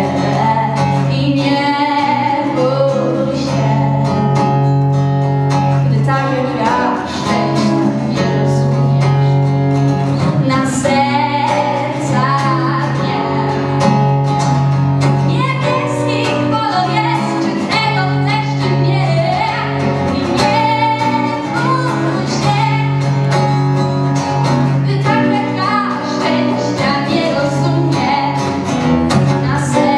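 A woman singing live into a handheld microphone over instrumental accompaniment, likely guitar, with low notes held for several seconds at a time beneath the vocal melody.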